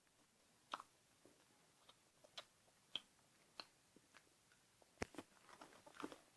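Near silence with a scattering of faint, short clicks and ticks, about one every half second to second, the loudest about five seconds in.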